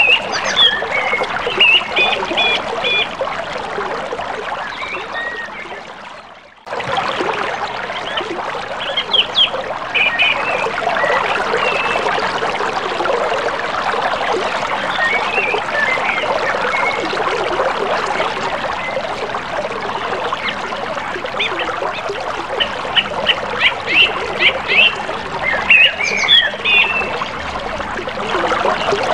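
Steadily flowing river water with birds chirping over it in short, high notes. The sound fades out about six seconds in and cuts back in abruptly.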